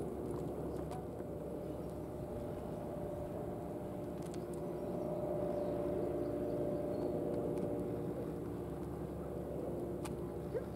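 A steady engine drone with a few held pitches, swelling slightly midway, with a few faint clicks.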